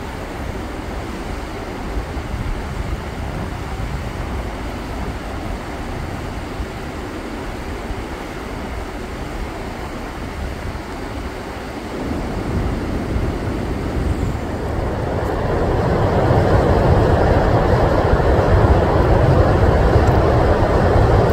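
Steady rushing of river rapids, a continuous roar that grows louder about twelve seconds in and again a few seconds later.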